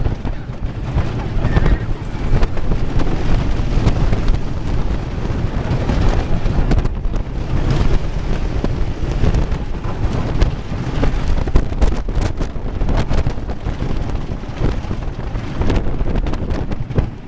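Intamin wooden roller coaster train running at speed along its wooden track, a steady rattle mixed with wind blasting the microphone, with sharp clacks here and there.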